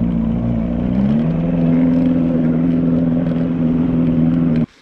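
Outboard motor of a fishing boat running steadily under way, its pitch rising a little about a second in; it cuts off suddenly near the end.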